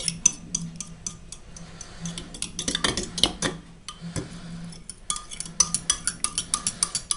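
Eggs and milk being whisked in a bowl, the utensil clicking against the bowl's side in quick strokes; the clicks are uneven at first and settle into a fast steady beat of about four or five a second near the end.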